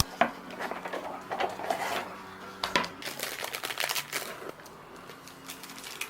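Irregular clicks, taps and rustling of objects being handled at close range.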